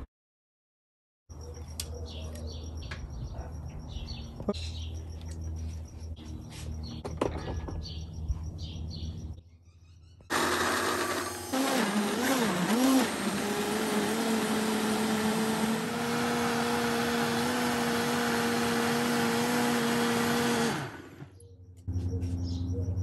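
Birds chirping over a low outdoor hum, then a high-powered countertop blender runs for about ten seconds, puréeing whole tomatoes and habanero peppers. Its pitch wavers at first while the tamper pushes the chunks down, then settles to a steady whir before it shuts off and winds down.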